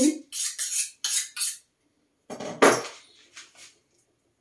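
Kitchen clatter: a quick run of short knocks and rattles, then a louder, fuller clatter about two and a half seconds in, from groceries and kitchen items being handled on the counter.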